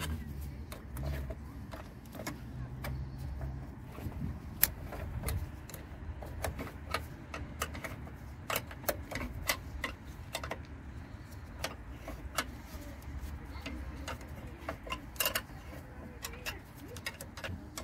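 Spanner working the nuts of a car battery's hold-down clamp tight: a string of irregular sharp metallic clicks and clinks, a few each second, as the tool ratchets and is reset on the nut.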